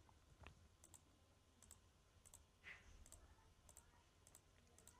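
Near silence with a few faint computer mouse clicks scattered through it.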